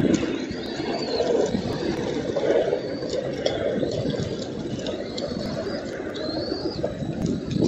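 Outdoor nest-camera audio: a steady low rushing noise, with a few short, high calls that rise and fall, one just after the start and one about six seconds in.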